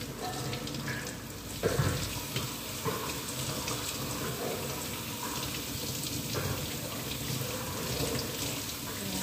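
Kitchen tap running into the sink while a whole fish is rinsed and turned by hand under the stream, the water splashing unevenly off it, with a louder splash about two seconds in.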